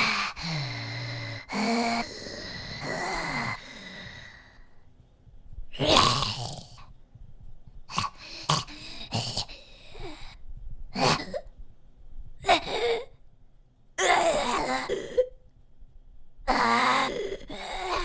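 Zombie vocal sound effect: a long, drawn-out rasping groan over the first few seconds, then a string of short snarls and gasps about a second apart, with two longer growls near the end.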